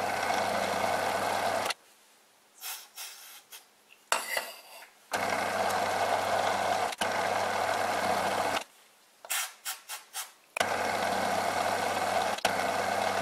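Bernardo Profi 600 G lathe running in three separate threading passes, each a steady machine noise with a low hum that cuts off abruptly, as a carbide threading insert cuts an M16 x 1.5 fine thread in steel with about a tenth of a millimetre infeed per pass. In the pauses between passes there are short clicks and knocks.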